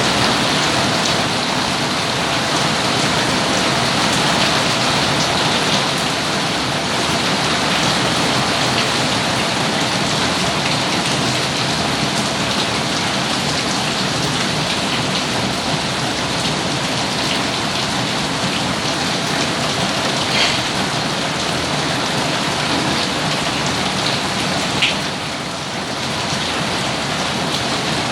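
Steady rain falling as a continuous even hiss. Two short, sharper taps stand out, about 20 and 25 seconds in.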